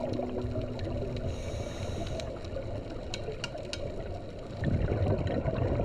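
Muffled underwater noise picked up by a diving camera, with a few sharp clicks around the middle and a louder bubbling rush near the end.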